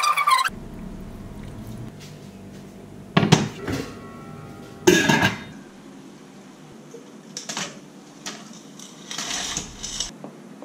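Stainless steel cookware being handled on a hob: two loud metallic clanks about three and five seconds in, then lighter clinks and a short rustle near the end.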